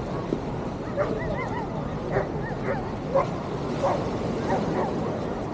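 A dog yipping and barking in many short, repeated calls over a background of crowd babble.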